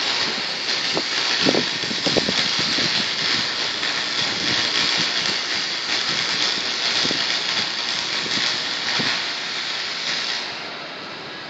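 Electric arc welding on a pipe: a steady crackling hiss with scattered pops, which stops about ten and a half seconds in.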